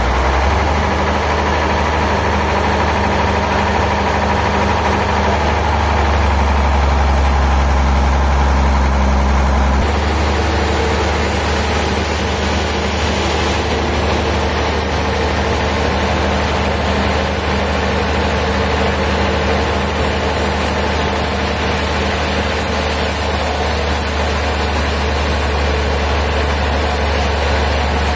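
A heavy machine engine running steadily with a deep hum, its tone shifting slightly about ten seconds in.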